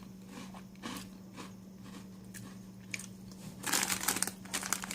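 Crunching and chewing a hard, dry garlic baguette cracker: a few scattered crunches, then a dense run of crunching from about three and a half seconds in.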